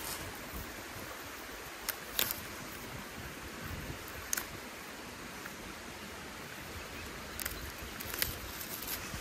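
Fiddlehead fern stems snapping a few times, about five sharp snaps scattered over a steady rushing outdoor background noise.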